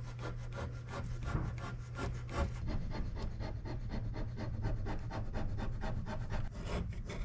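Hand-held razor blade scraping cured sealant off a wooden panel in quick, repeated short strokes, several a second.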